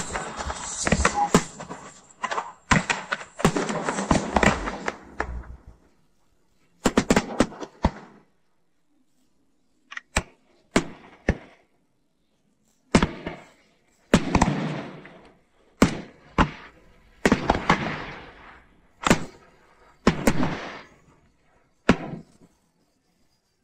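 Aerial firework shells bursting: a dense run of bangs and crackling for the first few seconds, then single bangs every second or two, each trailing off in a fading rumble.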